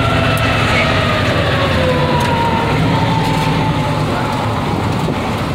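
Grave Digger ride monster truck's engine running, heard loud from inside the cab, with a whine that falls slowly in pitch over the first three seconds.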